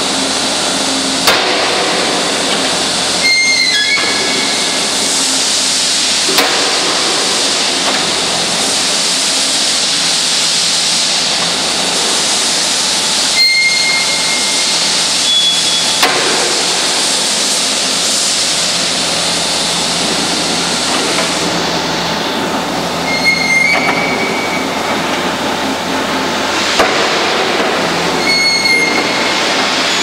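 Forway WS65 skid steer loader's diesel engine running loud and steady with its hydraulics working the lift arms and bucket. Now and then there are sharp metallic knocks and brief high squeaks.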